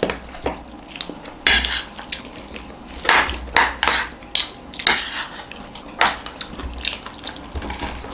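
Spoons clinking and scraping against plates as papadi chaat and samosas are eaten fast, in irregular sharp clicks and short scrapes.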